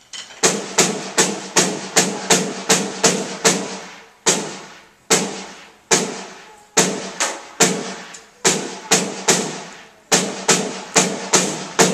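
Snare drum played as a short beginner exercise: single sharp strokes, about two or three a second, each ringing briefly, with a couple of short pauses between phrases.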